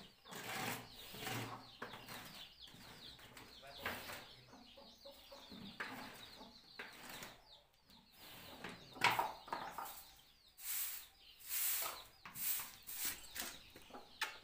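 Semicircular hand scoops scraping dung and straw off an earthen cattle-shed floor: a run of irregular scrapes and knocks, the loudest about nine seconds in. Small birds chirp faintly and steadily behind.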